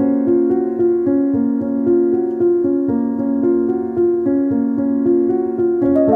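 Background piano music: a gentle melody of held notes changing about twice a second.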